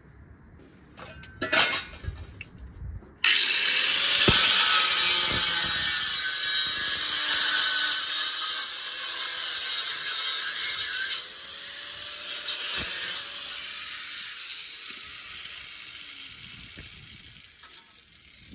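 Power tool cutting the steel of a VW Beetle replacement body panel. It starts suddenly about three seconds in, is loudest for the next eight seconds, then drops and dies away gradually.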